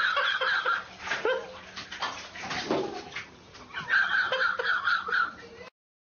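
Splashing and knocking in a bathtub of water, with two long, wavering high-pitched squeals, the second about four seconds in. The sound cuts off abruptly near the end.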